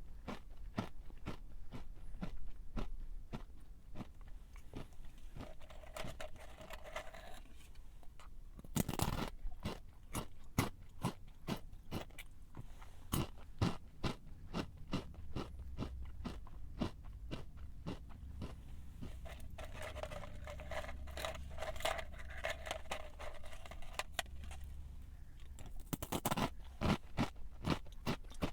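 A person chewing a crunchy snack: a steady run of crisp crunches as it is bitten and chewed, with a louder burst of crunching about nine seconds in and again near the end.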